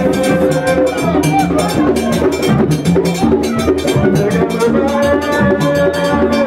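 Haitian Vodou ceremonial drumming, a steady rhythm of hand-drum strokes, under a group singing a chant with long held notes.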